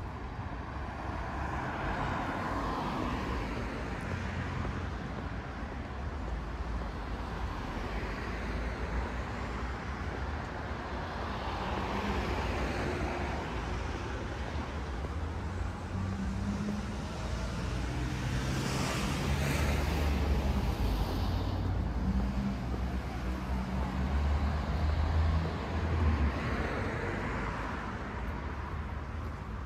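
Road traffic on a town street: several cars pass one after another over a steady engine rumble, the loudest a little past halfway.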